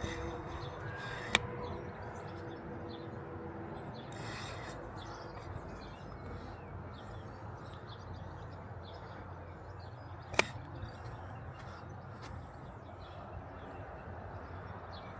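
Steady outdoor background noise, broken twice by a sharp click of a camera shutter, once just over a second in and again about ten seconds in.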